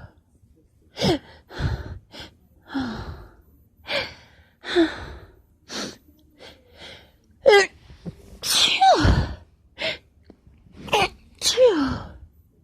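A woman sneezing repeatedly, with short gasping in-breaths between the sneezes. The longest and loudest sneeze comes about eight and a half seconds in, and another strong one comes near the end.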